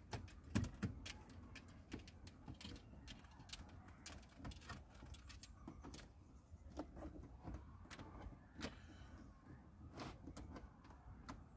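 Scattered small clicks and light rubbing as a flexible silicone light-guide strip is pushed by hand into the gap in a car's interior dashboard trim, over a faint low rumble.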